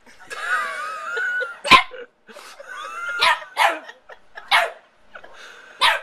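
Small white dog barking: a string of short, sharp barks, the loudest about two seconds in, with higher gliding whine-like calls just before it.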